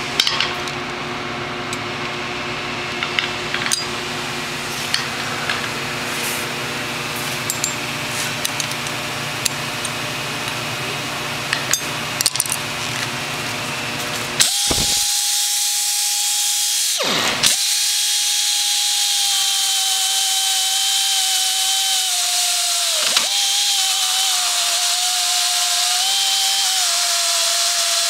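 Gerima SMA 40-P portable electric beveler milling steel plate: a steady motor hum with scattered sharp clicks. About halfway through it changes abruptly to a cleaner, steady motor whine that dips slightly in pitch a few times.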